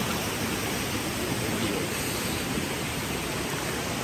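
Steady, even rushing noise with no distinct events, like running water or wind.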